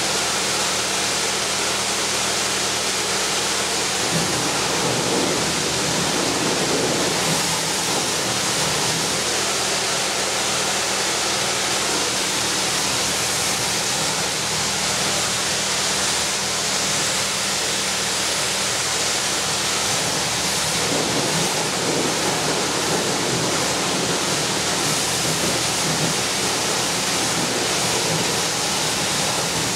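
High-pressure water spray from a pressure washer, a steady hiss of water jetting and splashing against the combine's sheet metal, with a steady low hum underneath.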